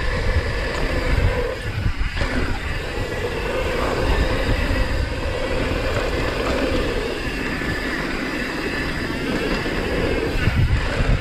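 Downhill mountain bike (YT Tues) rolling fast down a hard-packed dirt trail: a steady rumble of knobby tyres on the dirt with chatter and knocks from the bike over bumps, and wind buffeting the microphone.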